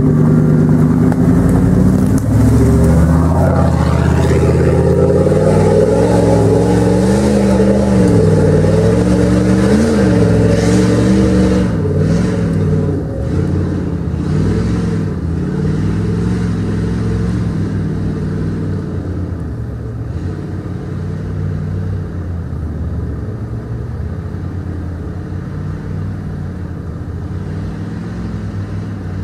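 Off-road 4x4's engine revving up and down several times under load, loud for the first dozen seconds, then running lower and steadier as it fades away.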